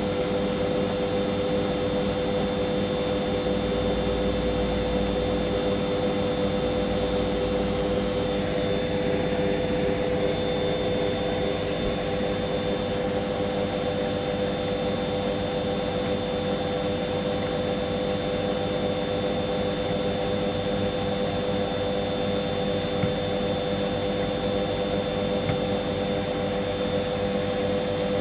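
Hoover washing machine drum spinning at high, constant speed in its final spin, with a steady motor whine over a low rumble.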